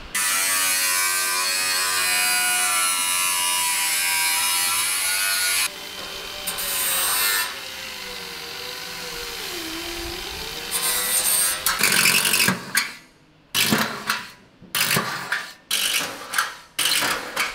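Angle grinder with a cut-off disc cutting into a sheet-steel mudguard. It is loud and bright at first, its motor pitch sliding as the disc bites. From about twelve seconds in, a series of short start-stop bursts of a power tool takes over.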